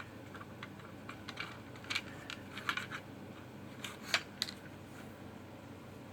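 Scattered light clicks and taps of plastic Playmobil toy pieces being handled and fitted onto a toy helicopter, with a sharper click about four seconds in.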